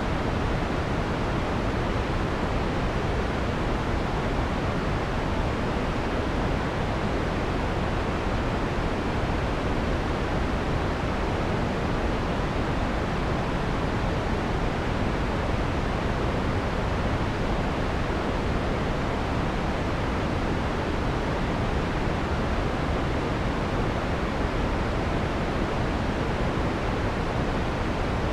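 Steady synthesized white noise with the harsh high frequencies filtered off, giving a soft, even hiss weighted toward the lows and mids. It runs without any change.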